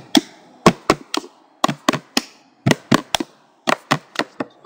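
Improvised drumming with sticks and wooden spoons on an upturned plastic tub and plastic bowls: a steady rhythm of sharp knocks, three quick strikes repeating about once a second.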